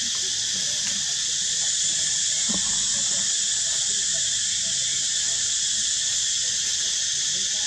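Steady, high-pitched drone of forest insects.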